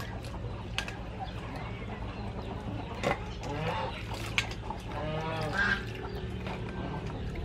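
Okra pods being rinsed by hand in a stainless steel bowl of water: water splashing, with a few sharp clinks of pods against the bowl. Poultry call in the background, most clearly about five seconds in.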